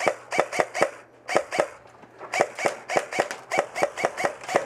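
Airsoft rifle firing quick semi-automatic shots, about four to five a second, each a short sharp snap, with a pause of under a second about halfway through.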